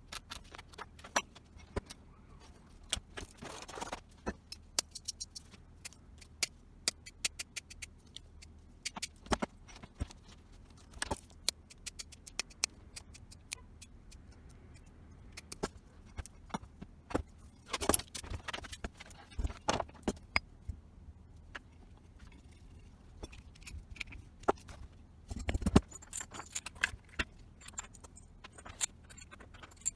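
Irregular metallic clicks, taps and clinks of small metal parts and hand tools being handled, with a few quick clusters of clatter.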